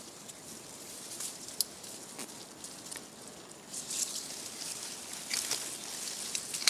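Dry leaves and twigs rustling, with scattered small crackles and snaps over a low hiss.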